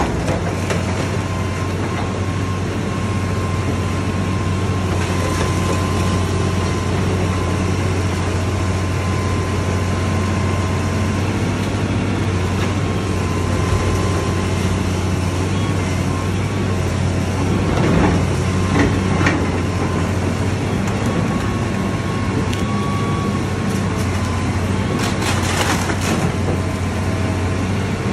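Hitachi hydraulic excavator's diesel engine running steadily as it works its boom, with a thin steady high whine over it. Short cracks and knocks of demolition debris come twice, about two-thirds of the way in and again near the end.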